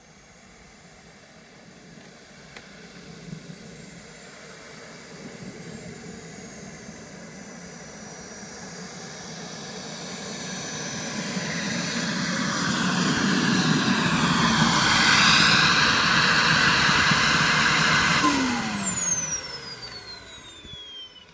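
KingTech K45 model jet turbine in a JTM Viper RC jet, running with a high whine that grows louder as the jet rolls along the ground toward the listener. About 18 seconds in, the turbine is shut down and spools down with a steeply falling whine that fades out.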